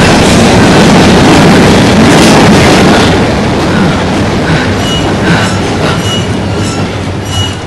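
Subway train rumbling through a tunnel, loud for about three seconds and then fading away, with a few short high squeaks from the wheels in the second half.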